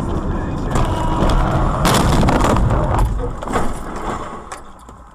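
Car colliding with an SUV, heard from inside the car: steady road noise, then a loud crunching impact about two seconds in, with smaller knocks and rattles after it as the noise dies down.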